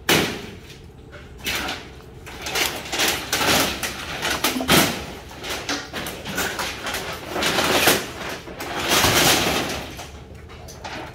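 Irregular knocks, clatter and scraping of wooden boards and sheet metal being pulled about and dragged as a shack is taken apart, with a sharp knock right at the start and another about halfway through.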